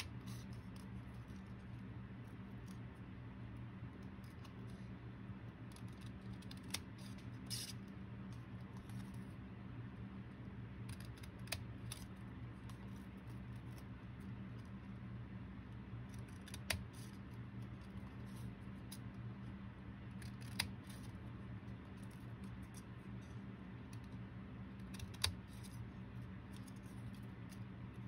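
Small scissors snipping slits into a folded paper index card, with a sharp snip every few seconds at irregular gaps, over a steady low hum.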